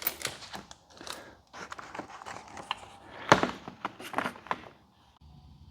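Handling noise from a small plastic parts bag: crinkling and rustling with sharp clicks, the loudest about three and four seconds in, falling quiet near the end.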